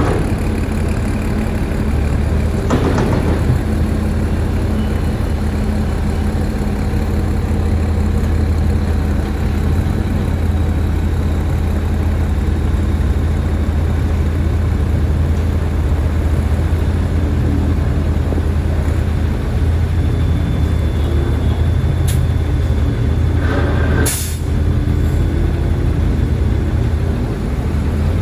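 Heavy construction machine's diesel engine running steadily with a deep drone. Two short hisses of released air cut in, one about three seconds in and a louder one near the end.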